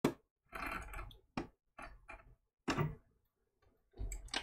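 Sewing machine stitching slowly in about six short stop-start runs, set to a very short stitch length as two layers of fabric are sewn along the edge of a paper template.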